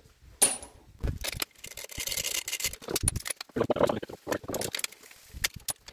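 Metal tools clinking and knocking against the Dorman 2RB diesel's cylinder head and studs as a spanner is handled, with a short rasping scrape about two seconds in.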